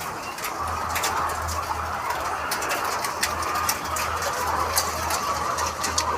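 A flock of poultry calling together in a steady, dense chatter, with many short sharp clicks and a low hum underneath.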